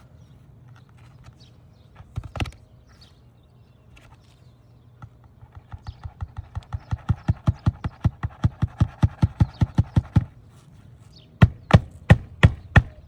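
Hammer driving roofing nails into an asphalt shingle: a fast, even run of light strikes that grow louder, then a few harder, slower blows near the end.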